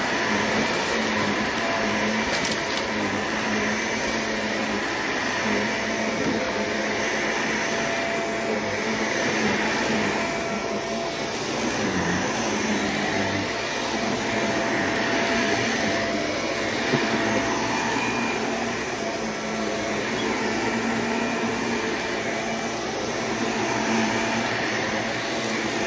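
Cordless stick vacuum cleaner running steadily on carpet, its motor whine and rush of air swelling and easing a little as the floor head is pushed back and forth over a pile of glitter.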